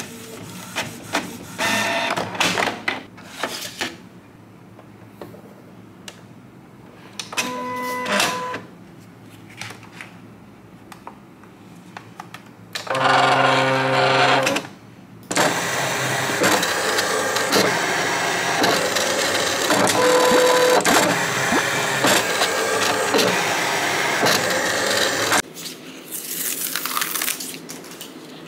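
A Canon printer feeding and printing a sheet in short spells of whirring and clicking. Then an electronic cutting machine draws the sheet in with a motor whir and runs steadily for about ten seconds as it cuts, with a brief swish near the end.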